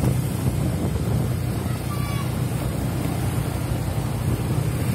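Wind rushing over the microphone and road noise from a moving vehicle, with a steady low engine drone underneath.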